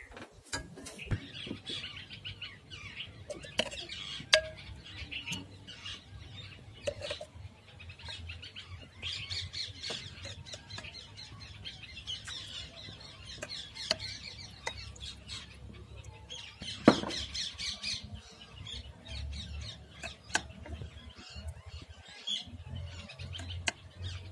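Birds chirping, many short high calls overlapping throughout, with scattered light clicks and one sharp knock about seventeen seconds in.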